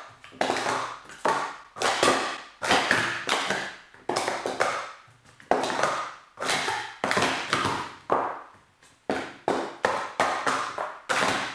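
Plastic sport-stacking cups clattering and tapping in quick bursts as they are stacked up into pyramids and swept back down, during a full timed cycle. A rapid run of sharp taps, cup on cup and cup on mat, every half second or so.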